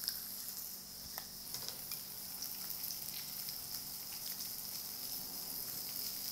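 Bacon and shiitake mushrooms frying in oil in a pan: a steady sizzling hiss with scattered small pops and crackles.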